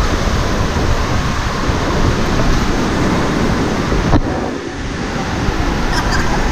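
Loud, steady rushing of water and air over the microphone on a water slide, dipping briefly a little past four seconds in.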